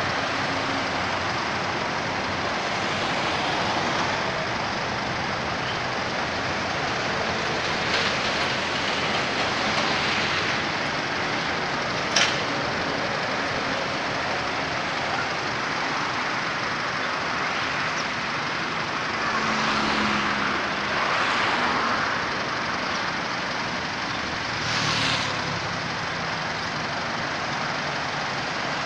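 Steady road traffic noise from a busy highway, with a few passing vehicles swelling louder in the second half and a single sharp click near the middle.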